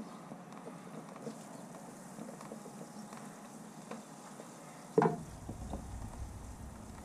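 Faint small ticks of a screwdriver working the mounting screw of a fuel pressure regulator on a car's inner fender. A single sharp knock comes about five seconds in, followed by a low rumble.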